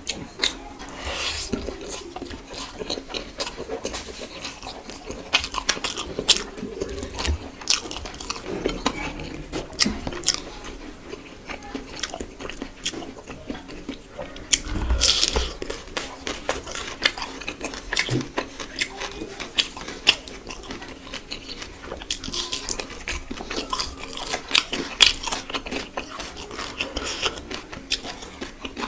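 Close-miked eating: irregular biting and chewing with crunches and wet mouth sounds.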